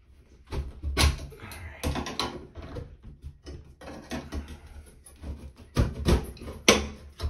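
Flat-blade screwdriver prying and knocking at a piece inside a ceiling exhaust fan's sheet-metal housing: a series of sharp clicks and knocks, the loudest few near the end.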